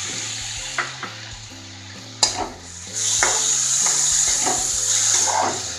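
Onions, green chillies and freshly added chopped tomatoes sizzling in oil in a wok while being stirred with a metal spatula, with a few sharp knocks of the spatula on the pan. The sizzle grows louder about three seconds in.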